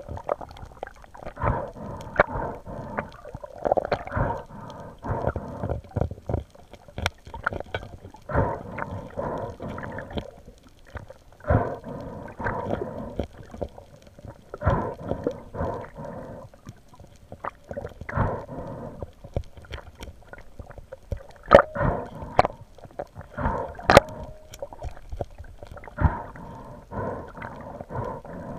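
Underwater sound of water moving: irregular muffled swooshes and gurgles every second or so, with frequent sharp clicks and a few louder knocks, while a speared giant trevally is held on the spear shaft.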